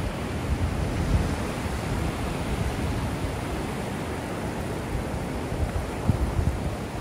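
Ocean surf washing steadily onto the beach, with wind rumbling on the microphone in uneven low gusts.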